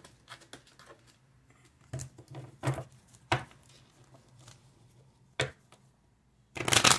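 Oracle cards being handled on a table: scattered taps and slides as cards are picked up and laid down, then a short, louder rustle of cards near the end.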